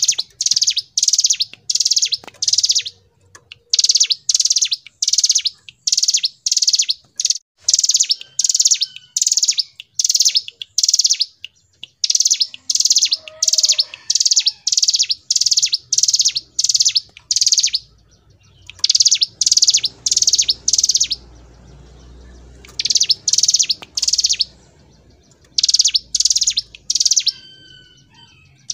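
Ciblek gunung (a prinia) singing its rapid, loud high-pitched song: short trilled notes repeated about two or three a second in long runs, with brief pauses between runs.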